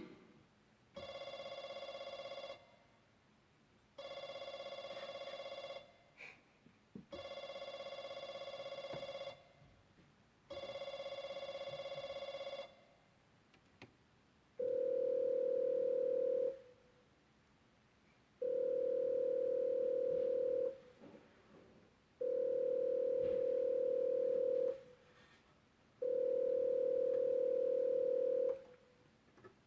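Yamaha electronic keyboard playing a telephone-ringing sound effect: eight long, steady beeps at the same pitch, one every three to four seconds, the last four louder and purer in tone.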